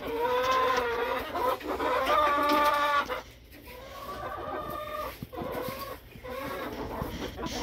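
Chickens calling in the coop: about four drawn-out, pitched calls, each roughly a second long and spaced about two seconds apart.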